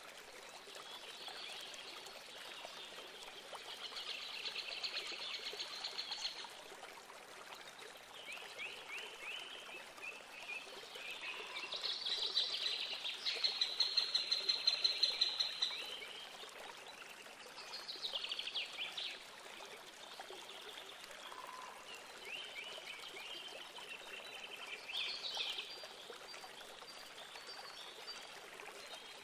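Birds singing over a steady rush of flowing water. The birdsong comes in short runs of chirps and trills, the loudest a rapid series of bright notes about halfway through.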